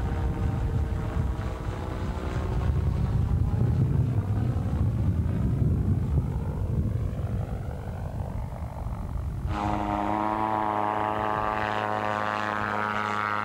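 Volkswagen flat-four-engined gyrocopter flying overhead: a loud engine and propeller drone whose pitch slowly shifts as it passes. About nine and a half seconds in, the sound cuts abruptly to a steady, even engine note.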